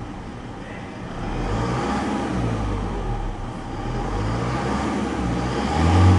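Mazda BT-50's 3.0-litre Isuzu 4JJ3-TCX four-cylinder turbodiesel free-revving in park. It goes up from idle about a second and a half in, settles back, then revs sharply to nearly 3,000 rpm near the end.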